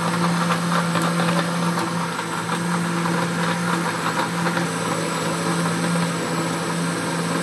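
Electric mixer grinder running steadily at full speed, blending a mango milkshake of mango, milk and ice in its jar. The motor gives an even hum with a whine over it.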